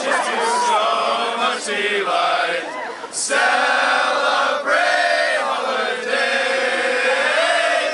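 A group of young men singing a Christmas carol together, in phrases with short breaks about every second and a half.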